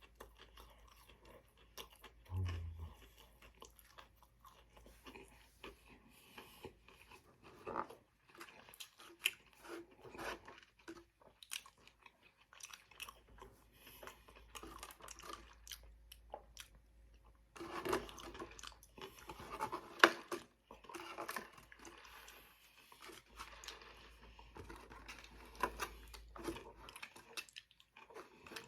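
Close-miked chewing and crunching of food, with irregular wet mouth clicks and crackles. A brief low-pitched sound comes about two and a half seconds in.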